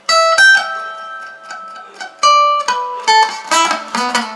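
Madera acoustic guitar being picked note by note: a few notes left ringing at first, then quicker picked notes in the second half.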